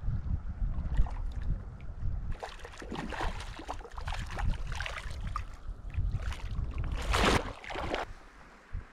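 Brown trout splashing and thrashing at the surface of a shallow creek as it is played in and landed, in a run of splashes with the biggest one just after seven seconds in. Wind rumbles on the microphone at the start.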